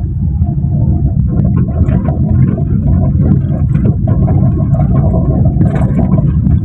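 Perodua Myvi driving over rough, pitted asphalt, heard inside the cabin: steady road and tyre rumble with many small knocks and rattles from the front suspension. The mechanic traces the fault to free play in the lower arm's ball joint.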